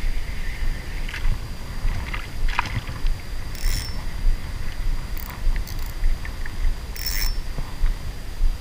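Shimano Aernos 1000 spinning reel being wound in while a small fish is played on an ultralight rod, with two short, sharp bursts from the reel a few seconds apart. A steady low rumble of water and wind sits underneath.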